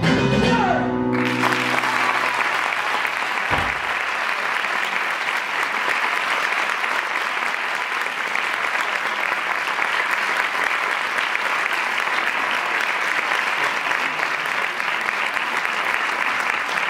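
Music stops about a second in and a theatre audience breaks into steady applause, with a brief low thud about three and a half seconds in.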